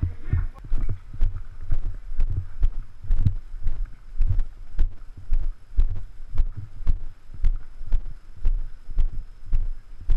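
Footsteps at a walking pace, about two a second, heard as dull thuds through a body-worn camera, each with a light click.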